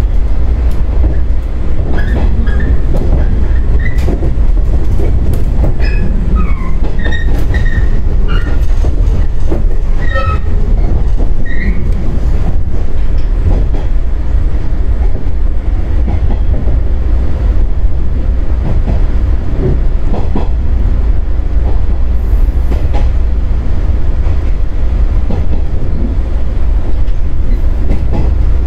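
115-series electric train running along the line, heard from the driver's cab: a steady, loud rumble of motors and wheels on rail, with a run of brief high wheel squeals in the first half.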